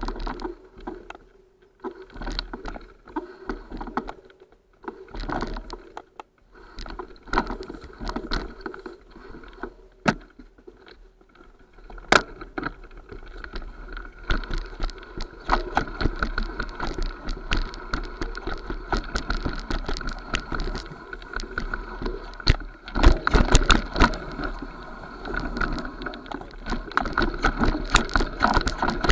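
Mountain bike rattling down a rough forest trail over steps and roots: many sharp knocks and clatters from the bike, over tyres rolling on dirt. Sparse and broken in the first half, it becomes a dense, louder rattle from about halfway.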